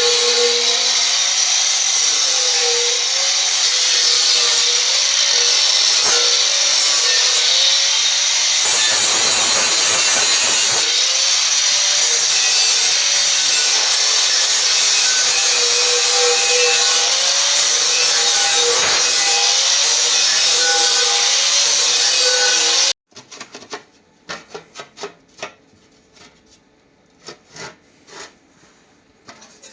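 An electric power tool running steadily under load, working on material with a loud hissing grind whose pitch wavers slightly. It cuts off suddenly about 23 seconds in, leaving light handling clicks and knocks.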